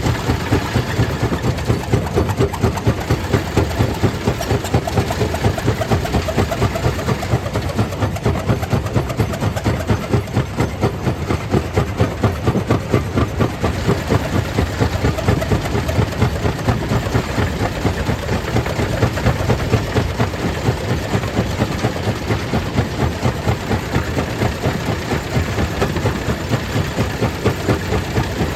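Stone crusher plant running: a steady, heavy mechanical drone with a regular, rapid pulsing beat.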